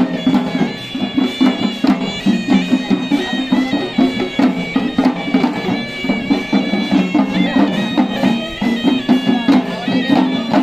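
Sri Lankan perahera procession music played live: a droning, reedy horanewa shawm melody over fast, continuous drumming by the procession's drummers.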